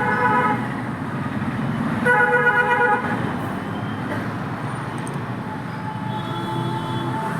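Road traffic running steadily, with vehicle horns honking: a short honk at the start and a louder, longer one about two seconds in.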